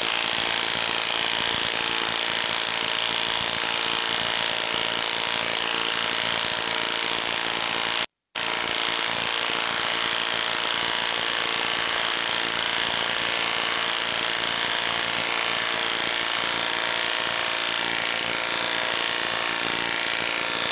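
Milwaukee M18 Stubby 1/2-inch cordless impact wrench hammering continuously under heavy load as it drives a 10-inch lag screw into a wooden log, a stress test on the motor. There is a brief break about eight seconds in, and the hammering stops suddenly at the end as the lag is driven home.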